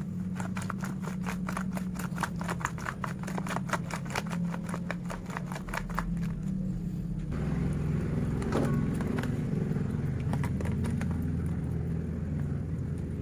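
Hands mixing flour-dusted raw prawns in a plastic tub: a fast run of soft clicks and squelches, about five a second, that stops about seven seconds in. A steady low hum runs underneath throughout.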